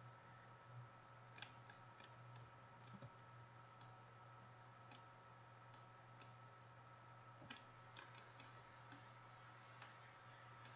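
Faint, irregular clicks of a computer mouse and keyboard, bunched in short runs, over a low steady hum.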